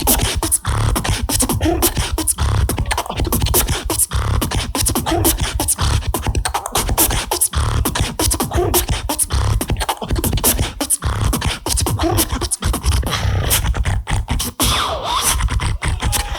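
A beatboxer performing a fast, dense beat: deep bass kicks under rapid sharp percussive hits, with vocal tones over the top.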